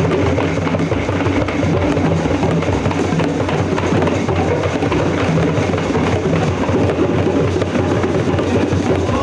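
Many djembes hand-drummed fast and hard by a whole group at once, a loud, dense, continuous rumble of strikes with no gaps, imitating a thunderstorm at its height.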